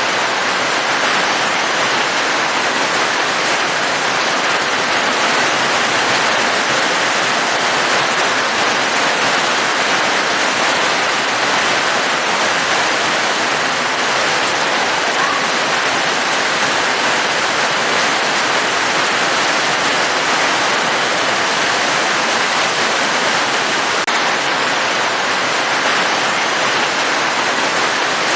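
Steady heavy rain: an even, unbroken hiss of water with no single drops standing out.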